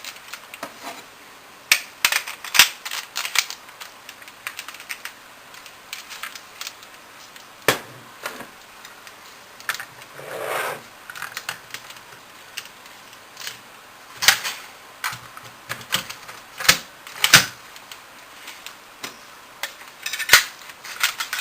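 Irregular clicks and knocks of an airsoft MP5 SD6's plastic and metal parts being handled, with one short scraping slide about ten seconds in.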